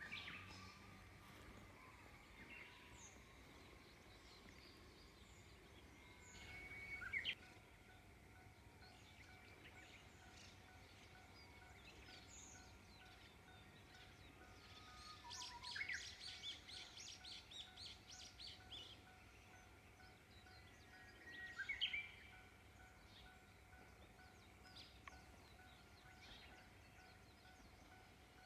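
Birds singing in quiet countryside: twice a bird gives a held note that ends in a quick upward flourish, and in between comes a rapid chattering trill, with faint scattered chirps.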